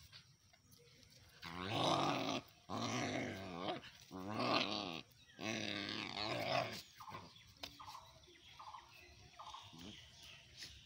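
Dogs growling during a rough play scuffle: four long, loud growls in the first half, then a run of short, fainter sounds.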